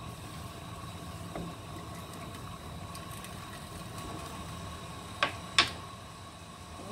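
Wooden spoon knocked twice against the rim of a cast-iron pot of simmering soup, two sharp knocks under half a second apart a little past five seconds in, as the spoon is taken out. A steady low hum runs underneath.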